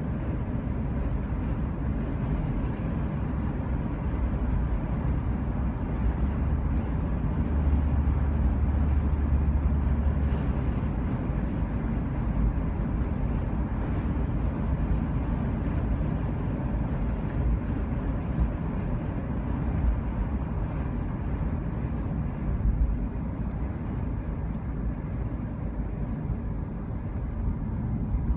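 Steady low rumble of a vehicle on the move, louder for a couple of seconds about eight seconds in.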